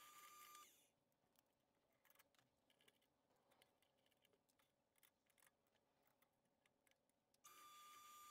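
Near silence with faint scattered clicks. A faint steady high-pitched tone stops under a second in and comes back near the end.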